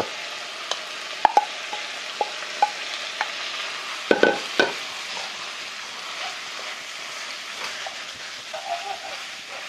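Udon noodles sizzling as they are stir-fried in a wok with meat, shrimp and vegetables in sauce, a wooden spatula scraping and tapping against the pan. Two louder clinks about four seconds in.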